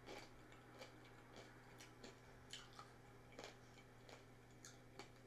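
Faint chewing close to the microphone: soft, irregular mouth clicks and smacks, a little under two a second.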